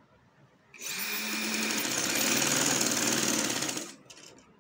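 Yashica sewing machine running at speed, stitching a seam through the layered fabric: it starts about a second in, runs steadily with a fast stitch rhythm for about three seconds, and stops near the end.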